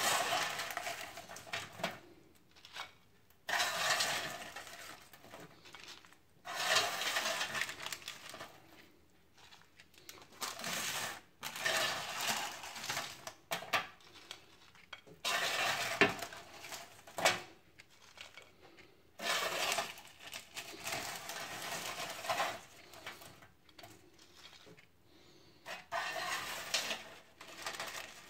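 A plastic spatula scraping oven-baked French fries off a paper-lined baking tray and tipping them onto a plate, in repeated scoops every few seconds, with rustling and light clinks.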